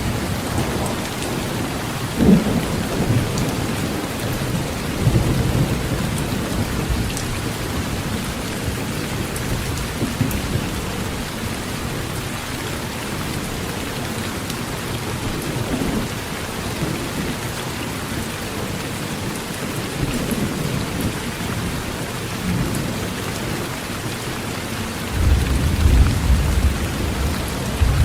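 Heavy rain drumming steadily on a metal tin roof, with low rolls of thunder rumbling underneath; the loudest thunder roll comes in near the end.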